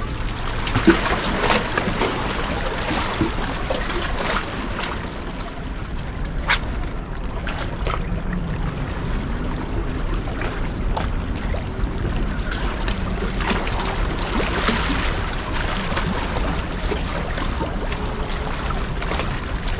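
Sea water washing and splashing against a rocky shoreline, a steady wash with a low rumble, broken by a few short sharp clicks, the clearest about a second in and near six and a half seconds.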